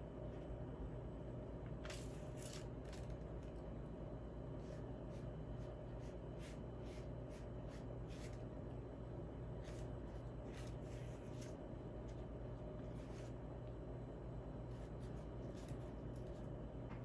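Light handling noises: scattered brief soft scrapes and rustles over a steady low hum.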